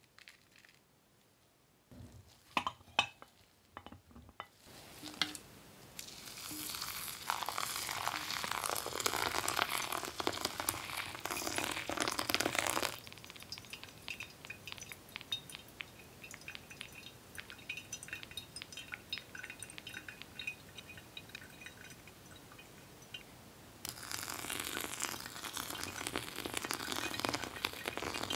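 Hot water poured from a kettle onto ground coffee in a paper filter in a ceramic pour-over dripper, after a few knocks at the start. The stream runs for about seven seconds, gives way to quiet fizzing and crackling as the wet grounds bloom, and starts again about four seconds before the end.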